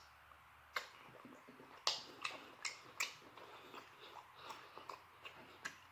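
A person chewing lobster tail meat with the mouth open, making about a dozen short, wet mouth smacks and clicks at irregular intervals.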